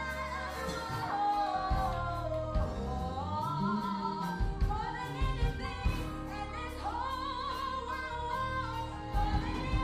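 Music with a singing voice over bass and a steady drum beat, in the style of gospel music.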